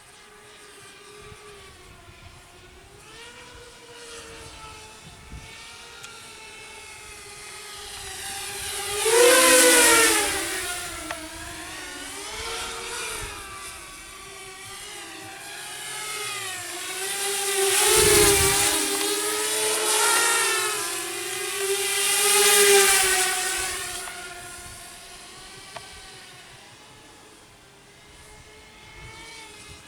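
Walkera F210 racing quadcopter's motors and propellers whining, the pitch wavering up and down with the throttle. It swells loud as the quad passes close about ten seconds in, then again several times through the middle before fading.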